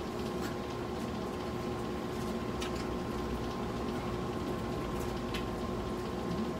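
Steady background hum with a few faint crackles of crispy fried chicken being chewed and pulled apart by hand.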